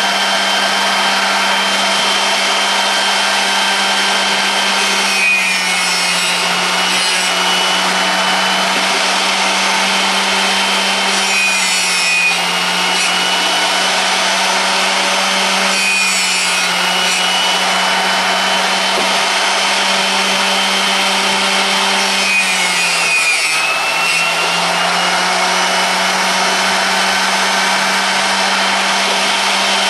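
Drill-bit sharpening grinder running with a steady hum while its wheel grinds a 9/16-inch steel drill bit held in a sharpening jig, a continuous rasping grind. The motor's pitch dips briefly a little over twenty seconds in.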